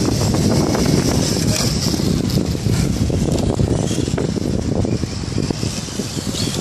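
Wind buffeting the microphone, a loud, uneven low rumble with crackle that sets in suddenly just before and keeps going, with a fainter high hiss above it.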